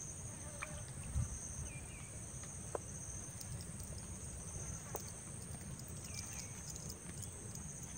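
Insects droning steadily at a high pitch, over a low rumble, with a few faint clicks and short chirps.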